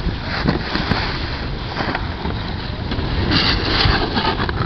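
Wind rumbling on the camcorder microphone over a steady outdoor hiss, with a brief louder hiss a little past three seconds in.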